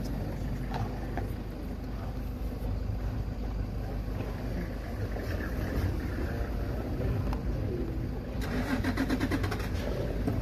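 Safari vehicle's engine idling with a steady low rumble. About eight seconds in, a burst of rapid rattling pulses lasts under two seconds.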